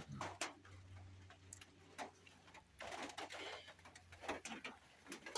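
Scattered light clinks and knocks of a spoon and plates as food is dished out, a few of them about a second apart.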